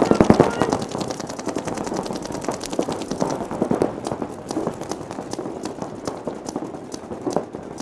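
Paintball markers firing rapid streams of shots, several at once and overlapping. The firing is densest in the first second and thins out after about three and a half seconds.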